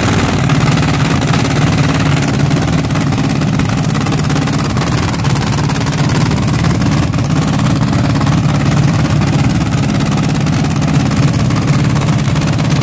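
The two supercharged engines of a twin-engine dragster idling, loud and steady with no revving.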